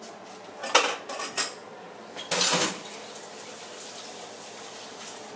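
Metal cookware and utensils being handled on a kitchen stovetop: three sharp clinks about a second in, then a louder, half-second clatter about two and a half seconds in.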